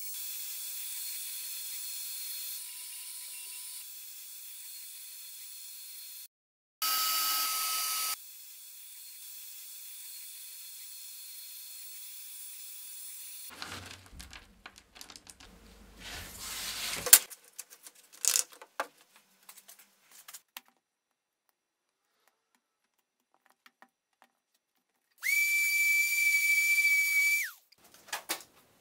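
X-Carve CNC router's spindle whining steadily as it carves the lattice pattern into a thin panel, with a short louder stretch of cutting. About halfway through come rustling and clicks as a hand sweeps through the pile of small cut-out pieces. Near the end a loud high whine holds for a couple of seconds, then stops with a falling pitch as the spindle winds down.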